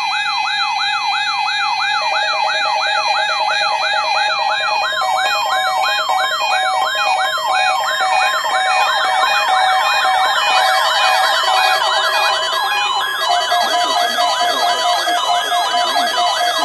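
Layered electronic sirens sweeping rapidly up and down, about three sweeps a second, over steady tones and high-pitched beeping. The mix shifts about three-quarters of the way through.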